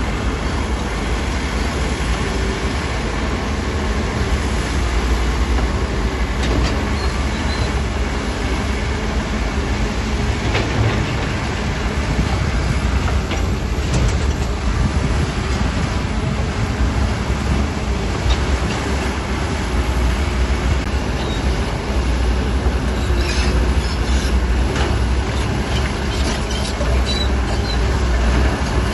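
Crawler bulldozer's diesel engine running steadily under load, its steel tracks clanking and squealing, with knocks and clatters of stone being pushed that come thickest near the end.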